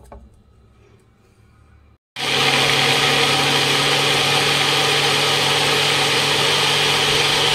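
Bullet-style personal blender motor running steadily at full speed, blending chopped papaya with milk into a smooth milkshake; it starts suddenly about two seconds in, after faint handling sounds of the blade lid being fitted onto the cup.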